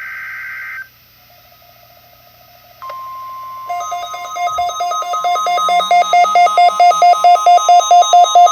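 The last burst of an EAS SAME digital header, a harsh two-tone data screech, ends under a second in. Just under three seconds in, the steady 1050 Hz NOAA Weather Radio warning alarm tone starts. About a second later a louder electronic alarm beep comes in over it, pulsing about five times a second and growing louder.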